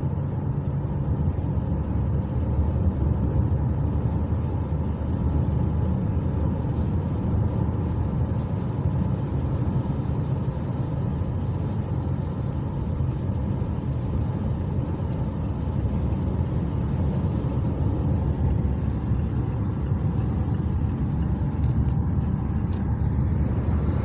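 Steady low rumble of road and engine noise heard from inside a moving vehicle travelling at highway speed.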